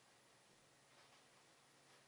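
Near silence: faint steady room-tone hiss, with two very faint soft ticks, one about a second in and one near the end.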